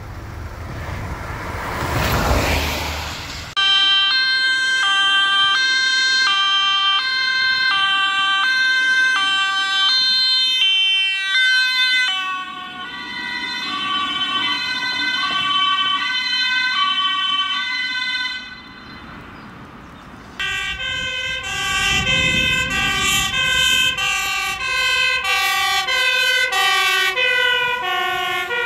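Two-tone sirens of Dutch emergency vehicles (fire brigade and ambulance) answering an urgent call, alternating between two notes, heard from several vehicles in turn. Passing road noise comes at the very start. Near the end a faster-switching two-tone siren sounds as a vehicle goes by.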